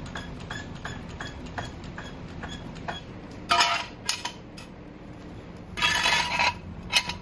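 Light metal clinks and ticks: a run of small, evenly spaced ticks about three a second, then two short rattling bursts and a sharp clink near the end.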